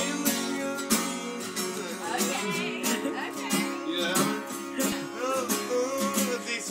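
Music with a strummed acoustic guitar and a steady beat, with what may be a singing voice over it.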